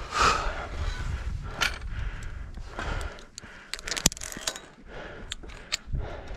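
Metal carabiners on a climbing safety tether clinking and clicking against a steel hand cable and its post, a quick run of sharp metallic clicks from about halfway through.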